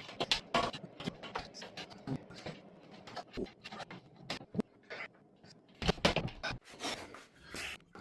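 Irregular clicks, scrapes and rustles of an LED ceiling light fixture being handled and slid onto its mounting bracket. A cluster of louder scrapes comes about six seconds in.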